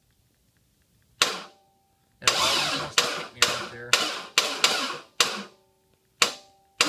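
Starter motor of a 383 stroker small-block Chevy V8, bumped in short bursts from a push-button switch with the spark plugs out, turning the engine over without compression to bring it up to top dead center. About ten short bursts, one a little longer about two seconds in, each starting sharply and dying away quickly.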